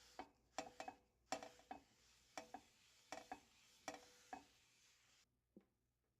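A utensil clinking against a bowl in about a dozen irregular knocks, each with a short ring, stopping about five seconds in.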